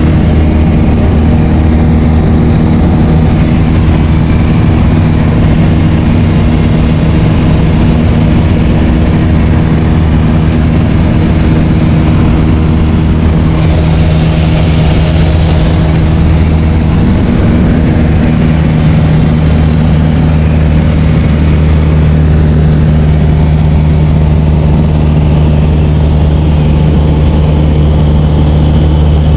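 Light aircraft's piston engine and propeller running steadily at a constant drone, with a brief change in the engine note about seventeen seconds in.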